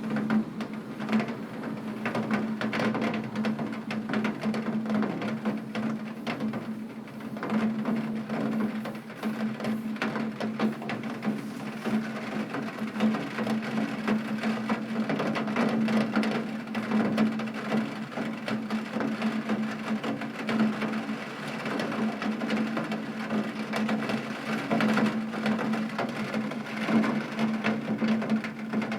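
Rain pattering steadily on a tin roof: a dense, continuous patter of drops, with a steady low hum underneath.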